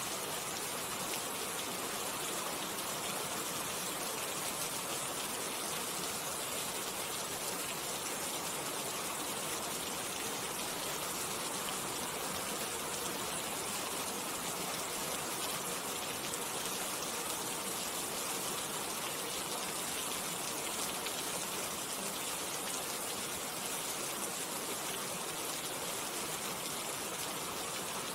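Steady rain falling: an even, unbroken hiss of many fine drops, with no single louder drip, thunder or gust standing out.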